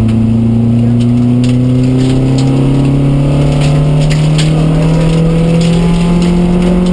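Vauxhall Astra Mk2's 1400cc four-cylinder petrol engine, heard from inside the cabin, pulling steadily up through the revs with no gear change, its note climbing slowly the whole time. Underneath is road and tyre rumble, with scattered sharp ticks.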